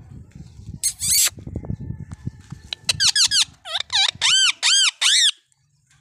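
Rose-ringed (Indian ringneck) parakeet calling: a short shrill call about a second in, then a quick run of about eight loud, shrill calls, each rising and falling in pitch, that stops about a second before the end.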